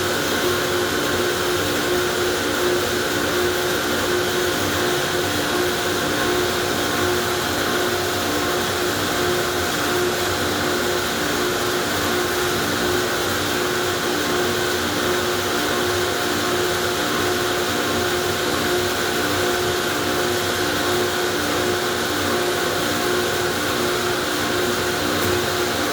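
Car wash machinery running steadily: an even motor hum with a faint pulsing tone and a wide hiss, not changing.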